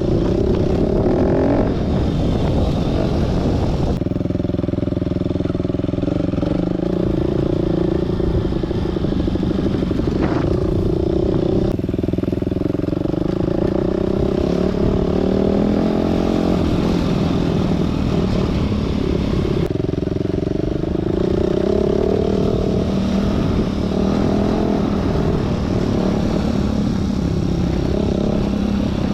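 Enduro motorcycle engine running under load on an off-road ride, its pitch rising and falling again and again as the throttle opens and closes and the gears change.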